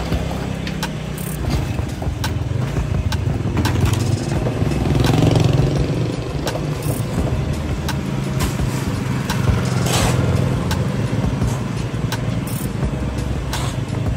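Vehicle engines running steadily, with scattered knocks and clicks and a brief louder rush of noise about ten seconds in.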